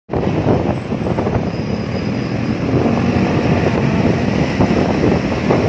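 Steady engine and road noise from riding an automatic motor scooter through traffic, with wind on the microphone.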